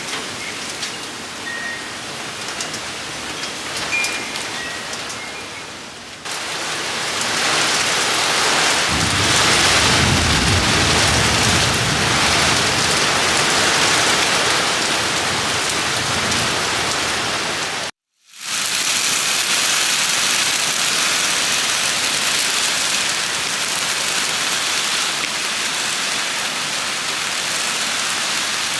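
Heavy rain pouring in a thunderstorm, lighter at first and then suddenly louder after about six seconds. Thunder rumbles low for a few seconds about a third of the way in. The sound cuts out for a moment past the middle, and the steady downpour then resumes.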